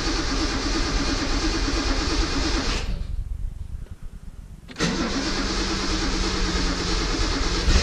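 A Datsun 280Z's rebuilt L28 straight-six is cranked on the starter motor in two bouts, about three seconds, a pause of about two seconds, then cranking again. It does not settle into a run; the owner thinks fuel pressure has to build back up after the fuel line was disturbed.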